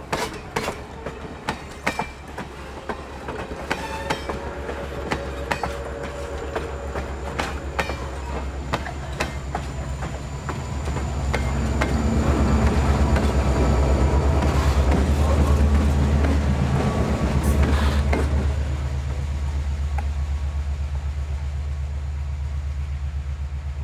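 A passing train: wheels clicking over rail joints, then a steady low diesel engine rumble that swells about ten seconds in and eases near the end, from the EMD diesels shoving at the rear.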